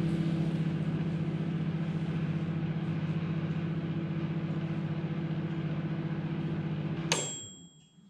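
Microwave oven running with a steady electrical hum, which cuts off with a click about seven seconds in, followed by a single bell ding from the dial timer running out.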